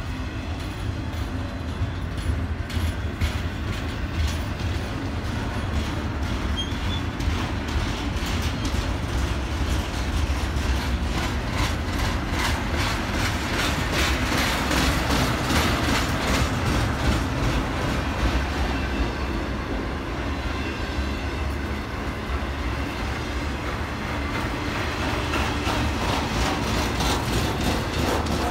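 Intermodal freight train of double-stack container well cars and trailer cars rolling past: a steady rumble of steel wheels on rail, with a rapid run of clicks as wheels cross rail joints, densest about halfway through.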